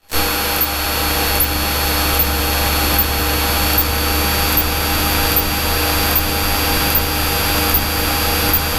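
Cabin drone of a single-engine Cessna's piston engine and propeller in steady cruise: a loud, even hum with a few steady tones over it.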